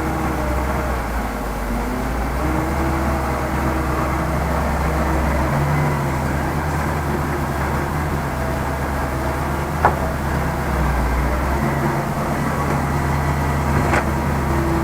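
Heavy diesel engine running steadily, its pitch shifting slightly as the load changes. Two short sharp knocks come about ten seconds in and near the end.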